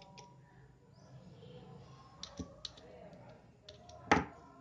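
Soldering iron working the solder joints of a circuit board: a few faint clicks and scrapes, then one sharp knock of handling near the end.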